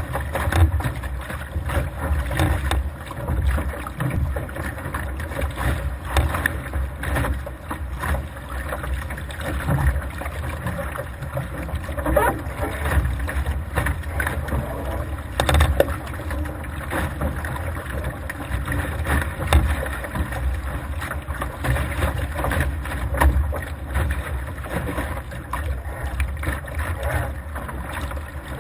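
Laser sailing dinghy moving through choppy water: water rushing and slapping against the hull, with steady wind buffeting the microphone. Irregular sharper slaps as the bow hits the waves.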